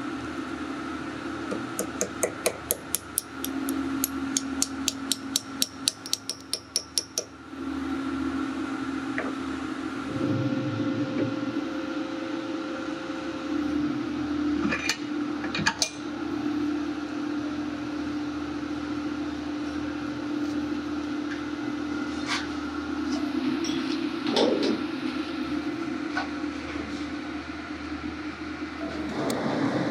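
Quick run of light metal-on-metal taps, about four a second for some five seconds, followed later by a few scattered knocks, over a steady low machine hum.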